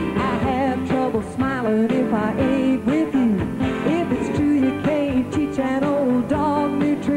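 Country band playing live, with a woman singing lead vocals over guitars.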